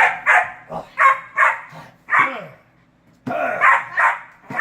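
German shepherd puppy barking in quick, loud runs: about five barks, a pause of about a second, then a few more. She is barking while held back from the bite target.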